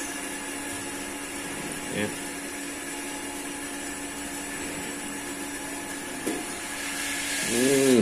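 Steady whir of a small electric motor with a constant hum, growing louder over the last second and cutting off at the end.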